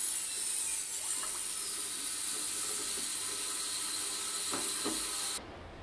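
Steady watery hiss of liquid running or fizzing, which cuts off suddenly a little over five seconds in.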